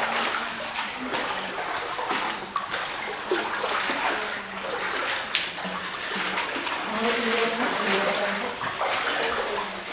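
Footsteps splashing through shallow water as several people wade along a cave passage, an uneven run of sloshes and splashes.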